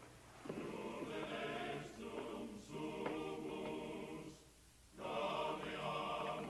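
A chorus singing in sustained phrases on a film soundtrack, pausing briefly about four and a half seconds in before coming back in.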